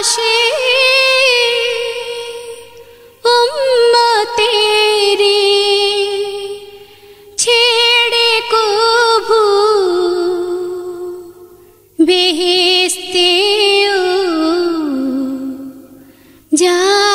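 A high solo voice singing a Bangla naat unaccompanied, drawing out long wavering notes in several phrases that each start strong and fade away.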